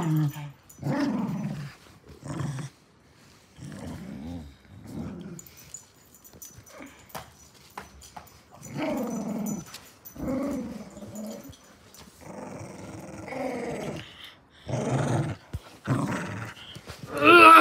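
A dog growling in play: a series of short, low growls, each about half a second to a second long, with brief pauses between. A louder, higher-pitched sound comes right at the end.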